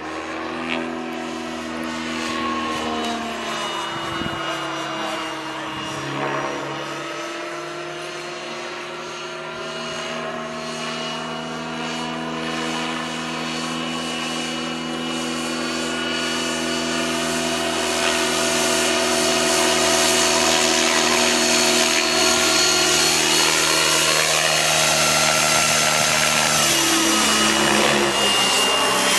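Align T-Rex 700 RC helicopter, powered by a Wren 44 model gas turbine, flying overhead: a steady turbine whine over the hum of the rotor. The pitch dips and rises as it passes, around 4 seconds in and again near the end. It grows louder over the last ten seconds.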